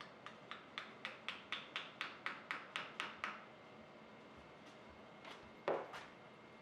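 A quick run of about a dozen light taps on wood, about four a second, followed near the end by one louder knock, as the wedges of shop-made edge banding clamps are tapped home.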